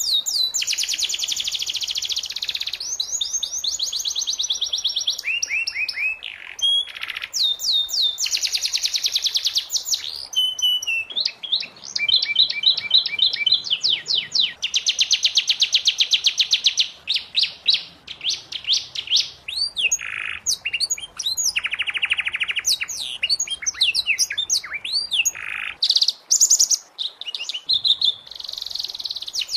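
Domestic canary singing a long, continuous song of fast trills and rapid repeated notes, phrase after phrase with only brief gaps.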